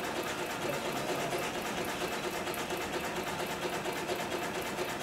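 Cowboy 7461-37 long-arm cylinder-bed walking-foot lockstitch sewing machine running steadily, stitching a seam along a heavy fabric tube with an even, fast rhythm.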